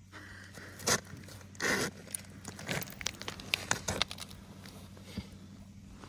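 Close crunching, crackling and scraping of ice chips and slush, with clothing rustle, as someone kneels and moves on the ice right by the mic. A sharp crunch about a second in and a longer one near two seconds are the loudest, followed by a quick run of smaller crackles.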